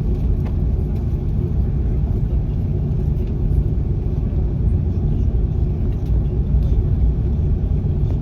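Steady rumble of an Airbus A330-300's engines and airflow heard inside the passenger cabin, with a faint steady hum.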